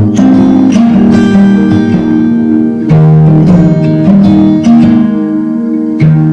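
Background music: acoustic guitar played with plucked and strummed chords.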